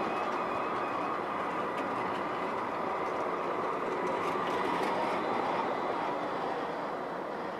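Strasbourg Eurotram running along its rails: a steady rolling rumble with a thin, steady high tone, easing slightly near the end.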